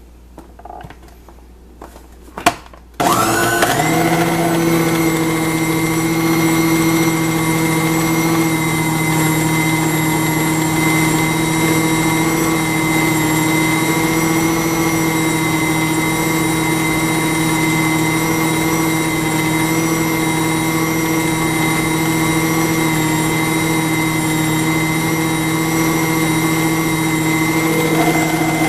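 A few clicks, then a food processor's electric motor switches on about three seconds in and runs steadily at one pitch, its blade churning a thick mash of egg filling.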